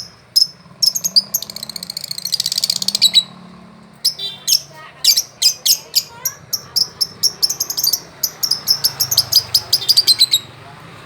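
A small songbird chirping in rapid strings of short, high notes, with a fast trill from about one and a half to three seconds in.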